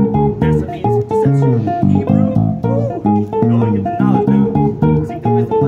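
Six-string electric bass played through an amp: a fast, steady run of short plucked notes, with a few slides between notes.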